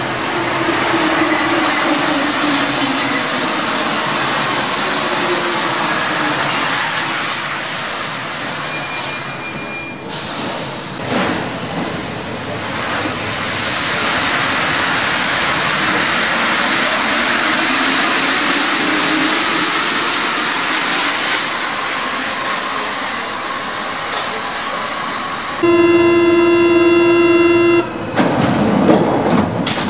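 A 1973 MP 73 rubber-tyred Paris Metro train arriving at a station platform, its motor whine falling in pitch as it slows to a stop, with clicks as it comes to rest. Near the end a steady door-warning buzzer sounds for about two seconds, followed by a short rush of noise as the doors close.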